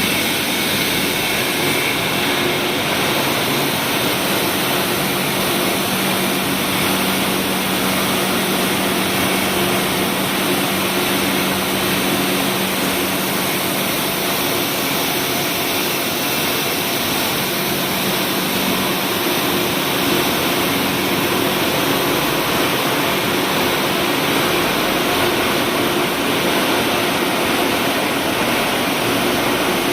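Wire-production machinery running steadily in a factory: a continuous even noise with a faint hum.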